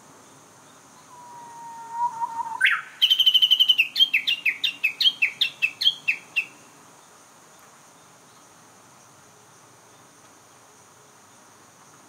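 Japanese bush warbler (uguisu) singing: a long low whistle about a second in slides up into a fast trill and then a run of about a dozen repeated sharp notes, which stops about six and a half seconds in. A steady high insect buzz runs underneath.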